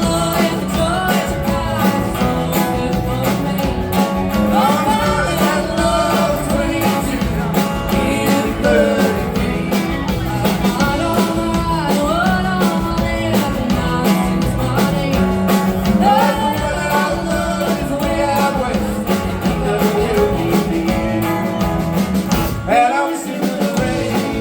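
Live country-rock band playing a break between choruses: a bending lead melody over bass and drums. The bass and drums drop out briefly near the end.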